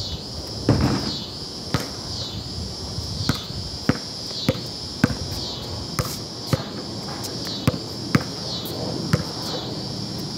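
A rubber basketball bouncing on a concrete slab, about a dozen sharp bounces at an uneven pace, the first about a second in the loudest. Behind it, insects keep up a steady high chorus that swells and dips in a regular pulse.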